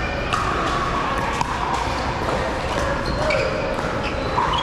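Pickleball paddles popping against plastic balls: irregular sharp hits that echo in a large indoor hall, over background chatter.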